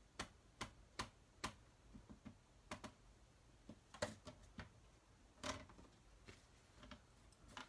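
Faint light taps of a Memento black ink pad dabbed onto a stamp, about two or three a second for the first second and a half, then a few scattered clicks and knocks of the pad and tools being handled, the loudest about four and five and a half seconds in.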